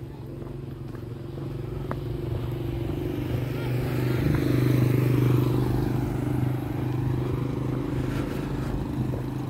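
A motor vehicle's engine hum that grows louder to a peak about halfway through, then eases off a little.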